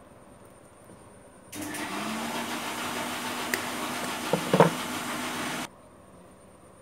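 A small handheld power tool switched on and running with a steady whirring hiss and a low hum that rises briefly as it spins up. It stops abruptly after about four seconds, with a few sharp clicks just before it cuts off.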